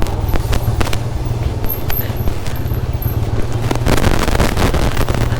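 Motorcycle engine running at a steady low pitch while riding over rough ground, with frequent clicks and knocks.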